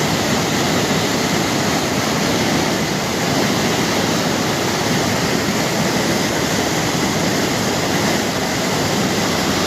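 Floodwater rushing in a swollen river: a loud, steady rush of water with no let-up.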